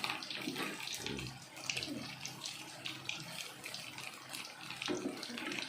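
Betel leaf and palm sugar syrup simmering in a pot, bubbling with many small irregular pops as it reduces and starts to thicken.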